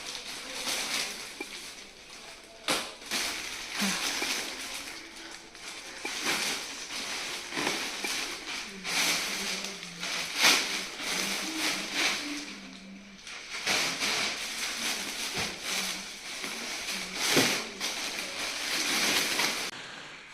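Packaging being handled during an unboxing, crinkling and rustling in irregular bursts, with a few sharper crackles.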